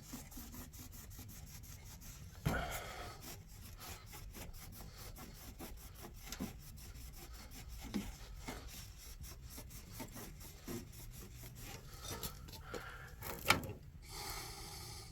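Rubbing and scraping of computer parts being handled and pried apart while a server tower is dismantled by hand, with a few knocks, the loudest near the end.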